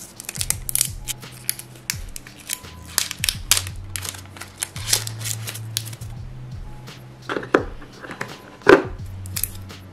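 Hard plastic clicks and taps of a white iPad power adapter being handled and pressed into its moulded packaging tray, with two louder knocks near the end as it is pushed into its slot.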